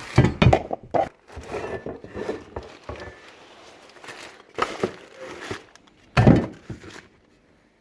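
Rubbish being rummaged through in a dumpster: rustling and crinkling with scattered knocks as items are shifted and pulled out, and one loud clunk about six seconds in.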